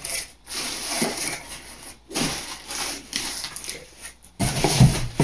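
Hands rummaging through loose packing peanuts in a cardboard box: an uneven rustling and crunching in spurts with brief pauses, and a louder thump near the end.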